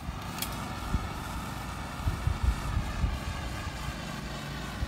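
Hand-held propane torch flame hissing steadily as it heats the end of black polyethylene well pipe to soften it for fitting the pitless adapter, starting with a click about half a second in.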